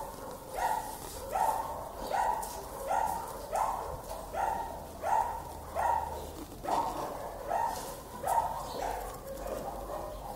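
A dog barking over and over at an even pace, about one bark every three-quarters of a second.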